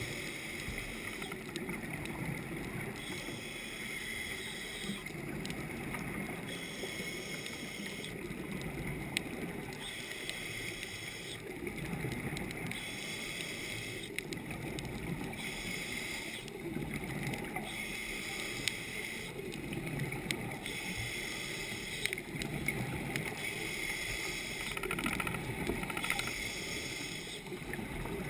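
Muffled underwater ambience heard from inside a camera housing: a steady low rush of water, with a few faint clicks and a soft pulsing hiss higher up.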